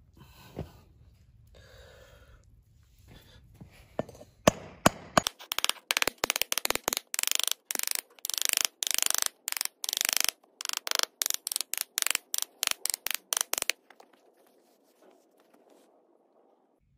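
Small steel trowel scraping packed moulding sand around an upturned frying-pan pattern in quick, rhythmic strokes, about three a second, starting about four seconds in and stopping near the end. A few sharp taps come just before the strokes begin.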